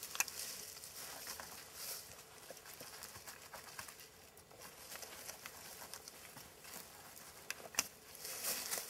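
Dry leaf litter rustling and crackling under gloved hands as the forest floor is scraped and dug at, with scattered small clicks and a sharper click near the end.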